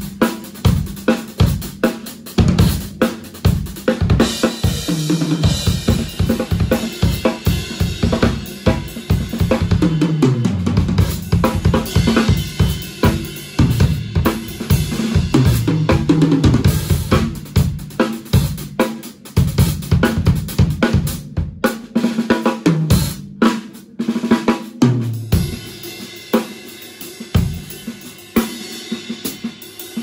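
Acoustic Pearl drum kit played solo: fast snare and bass drum patterns with cymbal and hi-hat strokes, and tom fills that run down in pitch from high toms to floor tom. The playing stops short for brief breaks about two-thirds of the way through.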